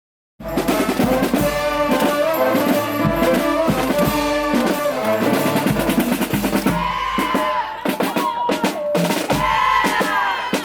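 Street brass band playing: brass horns over snare and bass drums, with snare rolls. The music starts abruptly about half a second in.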